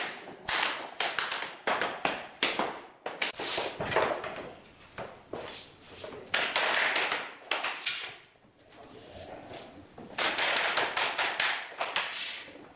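A hammer knocking laminate flooring planks together at their click-lock joints and at the wall end of a row, in quick clusters of sharp taps. In a few places the taps give way to longer scraping noise.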